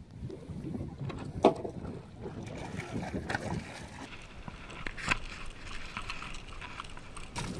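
Water splashing against a small boat and streaming off a landing net as it is hauled aboard, with a few sharp knocks against the hull, the loudest about one and a half seconds in.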